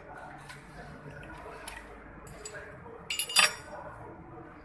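Metal hand tools clinking against an engine's rocker arms during a valve-clearance adjustment, with a quick cluster of sharp clinks about three seconds in.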